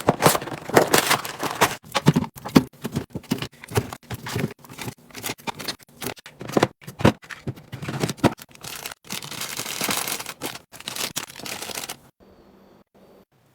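Rapid handling of food packaging and containers: quick clicks and knocks with rustling, crinkling and tearing of wrappers. It all stops suddenly about twelve seconds in.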